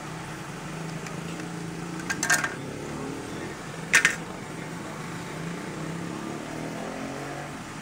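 Snap-fit plastic casing of a copier's paper-feed unit being pried apart by hand: a quick run of plastic clicks about two seconds in, then one sharp snap at about four seconds as the casing comes open.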